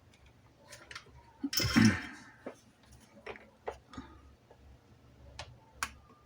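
Scattered light clicks and taps of multimeter test probes handled against a circuit board, with a brief louder scraping rustle about one and a half seconds in.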